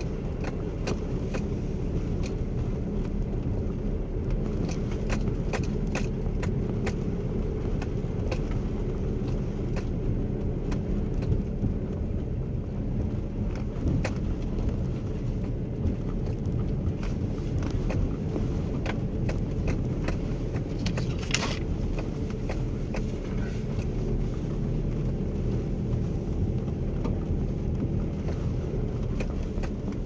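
Car driving slowly along a bumpy dirt forest track: a steady low engine and tyre rumble with frequent small clicks and knocks from the rough surface, and one brief hiss a little after twenty seconds in.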